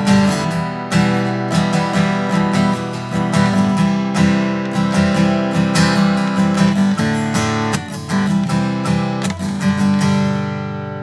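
Solo acoustic guitar strumming chords after the singing has stopped, closing the song. A last chord about ten seconds in is left to ring and fade away.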